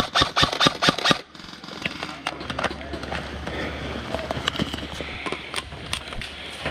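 Airsoft rifle firing a quick string of shots, about five a second, that stops about a second in. Then quieter rustling with scattered small clicks.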